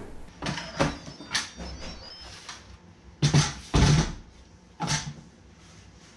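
A handful of knocks and clunks from an Instant Pot pressure cooker and its lid being handled. The loudest two come about three and a half and four seconds in, with a lighter one near five seconds.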